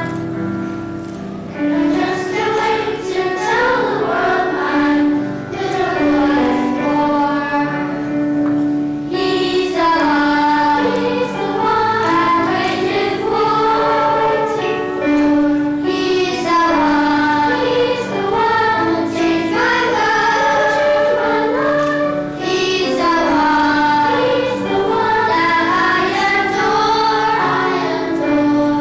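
Children's choir singing a Christmas song about the nativity, with instrumental accompaniment.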